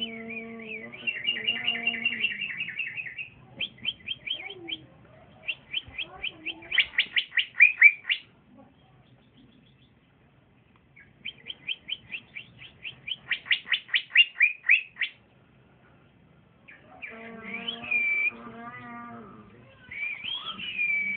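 Young male cucak ijo (green leafbird) singing in phrases of rapid, repeated chirping notes, several a second, some building into louder trills. There is a pause of a few seconds about eight seconds in.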